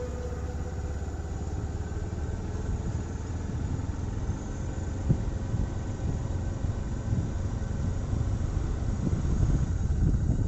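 A small motor vehicle's engine running steadily, with rumble from the tyres on the brick paving and wind on the microphone, heard from on board as it travels along a lane; the rumble grows a little louder near the end.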